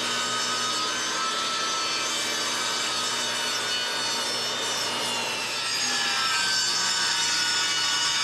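Table saw cutting through a wooden board: steady blade whine over the noise of the cut, getting a little louder about six seconds in.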